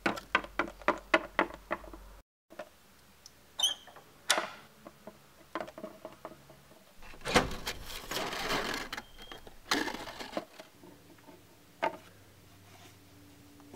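Hard plastic toy figurine tapped along a wooden tabletop in quick steps, about four taps a second, then scattered handling clicks and a rustle about halfway through.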